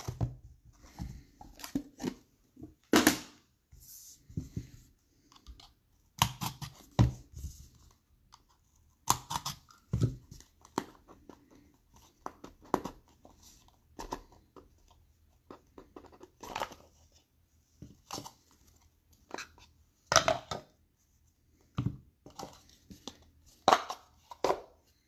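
Wrapper of a sealed trading-card pack being torn open and crinkled by hand, in short irregular rips and rustles with pauses between them.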